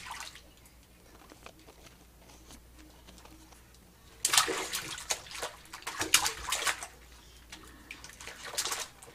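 A baby splashing water with her hands in a shallow inflatable bathtub. The splashing comes in bursts, about four seconds in, again around six seconds and briefly near the end.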